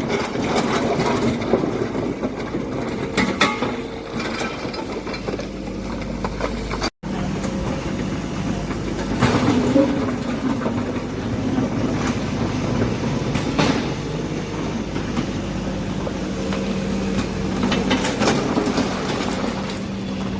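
Excavator running steadily, with a few sharp metallic clanks spread through the work. The sound cuts out for an instant about seven seconds in.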